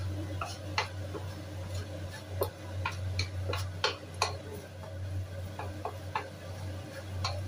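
Wooden spatula tapping and scraping against a ceramic-coated frying pan while minced garlic is stirred: irregular light clicks, a dozen or so, over a steady low hum.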